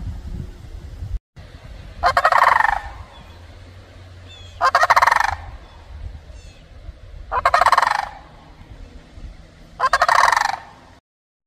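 Eastern wild turkey gobbling four times, roughly every two and a half seconds, each gobble a short rapid rattle.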